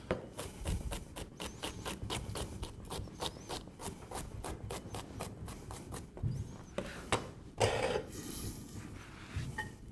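Chef's knife mincing celery on a white plastic cutting board: quick, even knife knocks about four a second, thinning after about six seconds to a few scattered knocks and a short scrape.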